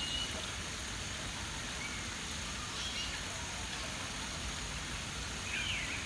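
A small stream running steadily over rocks, with a few faint bird chirps, one of them a short looping call near the end.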